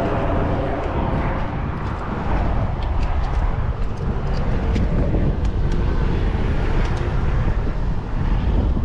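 Steady low rumble of wind and passing road traffic, with a few faint clicks and taps.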